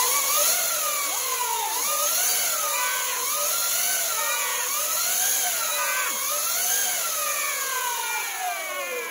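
Sur-Ron electric dirt bike's drivetrain whining as the rear wheel spins free, the pitch rising and falling with repeated throttle blips, then winding down near the end. The noise is the 420 chain and the first- and second-stage reduction.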